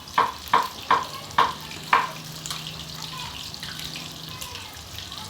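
Breaded chicken frying in oil with a steady sizzle; five sharp, ringing taps come in quick succession in the first two seconds.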